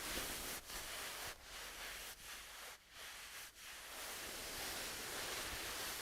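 A shirt's fabric rustling as it is moved, in a run of short strokes separated by brief pauses in the first half, then a steadier, continuous rustle.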